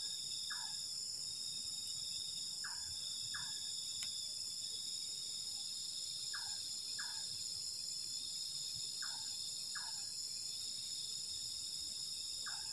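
Steady high-pitched chorus of night insects such as crickets. Over it, a short two-note falling call from a night animal repeats about every three seconds.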